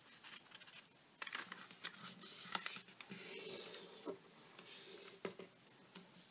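Quiet rustling and sliding of a square of origami paper being folded and creased by hand on a table, with a few soft taps.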